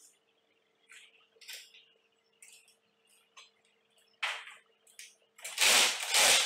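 Light clicks and taps of the metal opener door arm and its bracket being handled, then a cordless drill run in short bursts: a brief one a little past halfway and a louder, longer one about a second long near the end.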